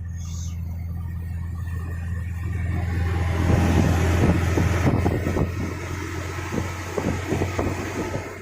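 Vehicle engine droning steadily while driving over rough sandy ground; from about three seconds in it gets louder, with a run of knocks and rattles from the bumpy ride.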